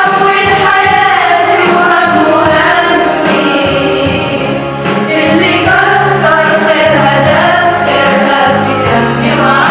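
A girls' choir singing in unison, with long, held, sliding notes over low steady notes that change every second or so.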